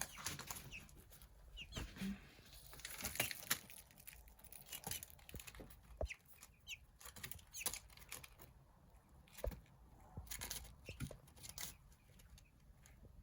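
A young Australorp, Light Brahma and Silkie bantam cross chick gives a few short, high peeps amid scattered soft taps and rustles of pecking and scratching.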